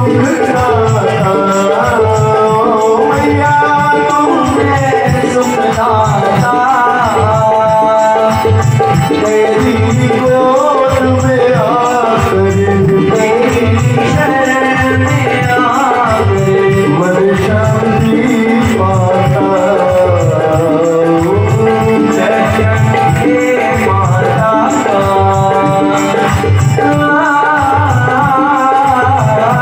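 Devotional aarti hymn sung in a gliding melody over a steady drum beat with jingling percussion.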